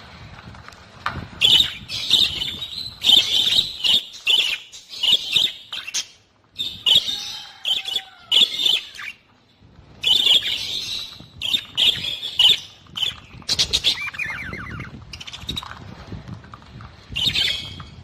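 Flock of budgerigars chattering: a dense run of short, high squawks and chirps, with two brief lulls.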